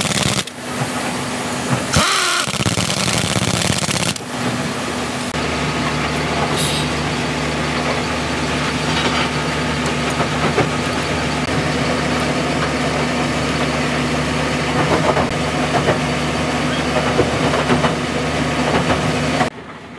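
Compressed air hissing from an air gun blown at a wheel hub in two short blasts, then a diesel engine idling steadily, stopping shortly before the end.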